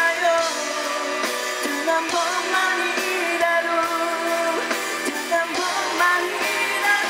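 A band playing a Korean pop ballad, with a singer's voice over guitar and a steady drum beat.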